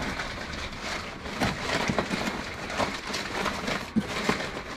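Packing paper rustling and crinkling as hands dig through a cardboard shipping box, with several sharper crackles along the way.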